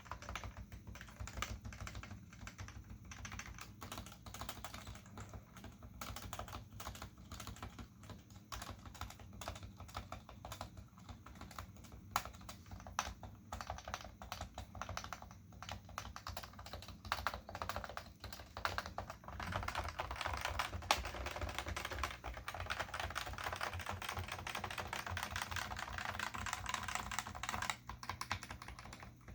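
Typing on a Cooler Master NovaTouch keyboard with Topre capacitive rubber-dome switches and OEM-profile keycaps: a steady run of keystrokes that turns into faster, louder typing about two-thirds of the way in and eases off near the end.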